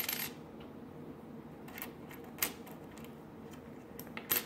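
Pennies clicking against one another and the wooden tabletop as they are picked up and set down: a few sharp clicks spread through, with a quick pair near the end.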